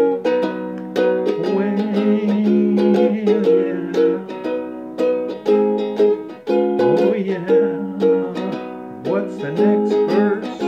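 Ukulele strummed in a steady rhythm, chords ringing between strokes.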